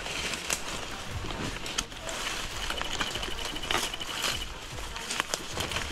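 Footsteps and gear rustling through brush and leaf litter on a patrol, a steady scatter of crackles and crunches. About two and a half seconds in, a high, evenly pulsing trill from wildlife runs for roughly two seconds.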